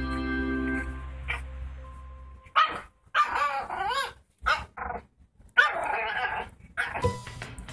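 Pug puppy yapping in a string of short, high barks and yips, starting a couple of seconds in. Background music with long held organ-like notes fades out before the barking.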